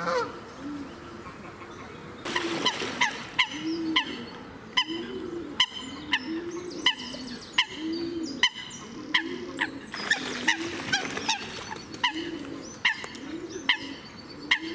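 Canada geese honking in a long run of short, sharp honks, about two a second, starting about two seconds in. Under them a pigeon coos low and steadily throughout.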